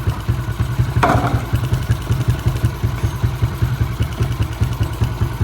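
Yamaha Exciter 135's rebuilt single-cylinder four-stroke engine, bored out to 62 mm, idling steadily with an even, rapid pulse. The idle has just been set, and the engine runs smooth and quiet. A brief clink comes about a second in.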